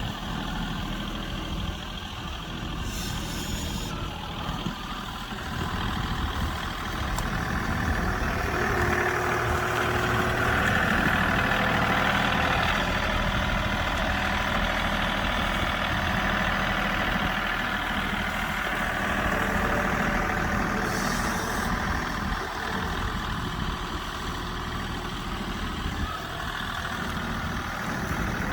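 Tractor engine running steadily while turning a compost pile, working harder through the middle stretch before easing off again.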